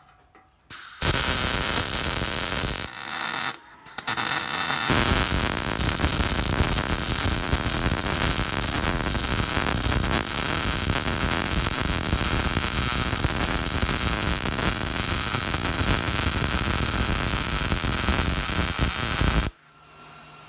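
MIG welder arc on steel square tubing, laying a bead along a mitred corner joint. It runs for about two and a half seconds, stops briefly, then starts again and runs steadily for about fifteen seconds before cutting off suddenly near the end.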